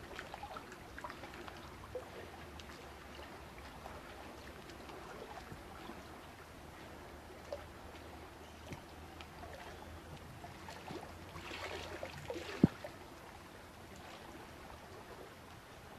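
Soft water sounds, trickling and gurgling like a stream, over a low hum, with scattered small clicks and one sharp click near the end.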